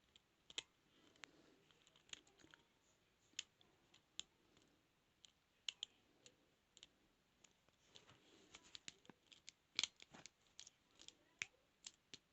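Metal lock picks and a tension wrench working inside a practice padlock: faint, irregular small metal clicks and light scraping, coming thicker a little past halfway.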